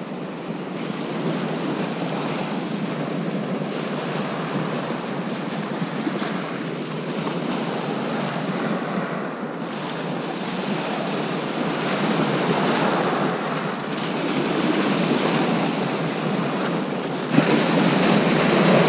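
Sea surf breaking and washing up the beach, with wind buffeting the microphone; a louder wave surges in near the end.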